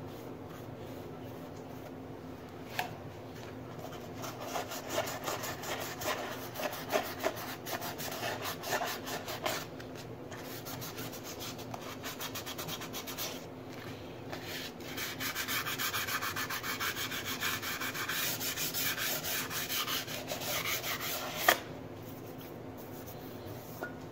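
A small piece of sandpaper rubbed by hand over a freshly scraped babbitt main bearing, smoothing it after scraping. Quick back-and-forth rubbing strokes come and go, busiest in the last third, with one sharp tap near the end.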